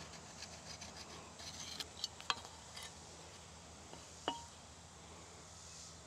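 A few faint clicks and light metallic clinks of a square and marking tools being handled against a wooden post while squaring off a cut line. The sharpest click comes a little past two seconds in, and a last one with a brief ring comes near four seconds.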